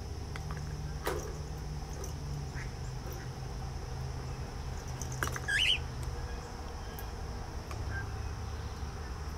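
Ducks quacking, with one short, harsh squawk about five and a half seconds in, over a steady low hum.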